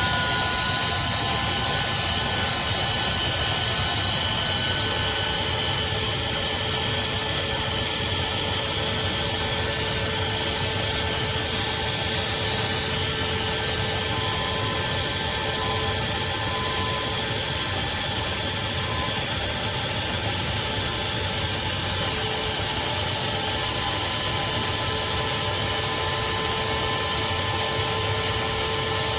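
Craftsman CMXEVBE17595 16-gallon, 6.5 peak HP wet/dry shop vacuum running steadily: an even rush of air with a faint motor whine over it.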